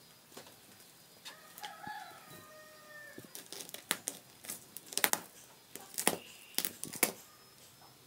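A short animal call with a held, slightly falling pitch, then a quick run of sharp clicks and knocks, the loudest about five to seven seconds in.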